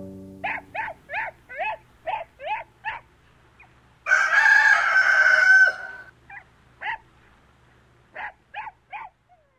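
The last domra and guitar notes die away, then a hen clucks in a quick run of short calls, about three a second. About four seconds in, a rooster crows once for about a second and a half, and a few more scattered clucks follow.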